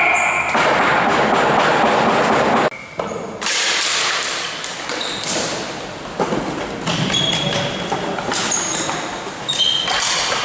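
Ball hockey play: repeated knocks and thuds of sticks and ball, with several brief high squeaks. A dense noisy din fills the first few seconds and dips sharply about three seconds in.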